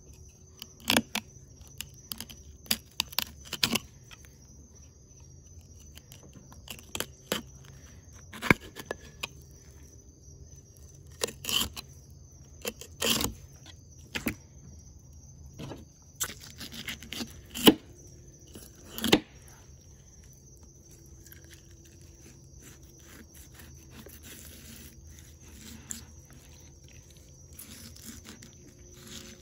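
Danco fillet knife cutting and scraping along a triple tail's rib bones and skin, with irregular sharp knocks and scrapes as the blade and fish hit the bamboo cutting board. A steady high-pitched insect drone runs underneath.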